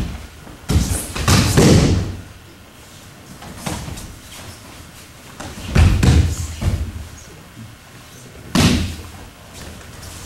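Bodies falling onto an aikido practice mat: dull thuds and slaps as the attacker is thrown and breaks the fall. Three loud clusters of impacts, about a second in, near the middle and late on, with softer footfalls and cloth rustle between.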